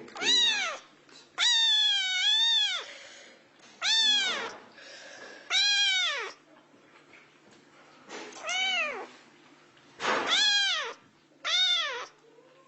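A cat meowing over and over: seven loud meows, each rising then falling in pitch, the second one long and drawn out.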